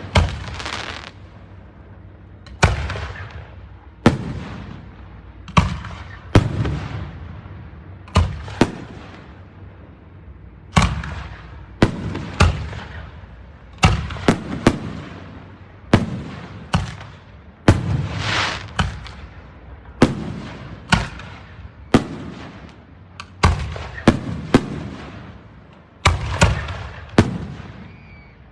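Aerial fireworks display: a steady barrage of shell bursts, a sharp bang about every second, each trailing off into crackle and echo.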